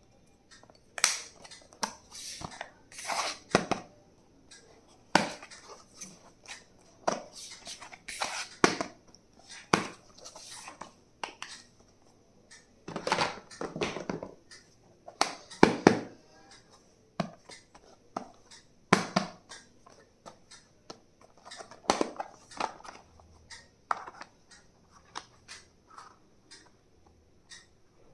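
Stationery items and their packaging being handled during unboxing: irregular sharp clicks and taps mixed with short rustles.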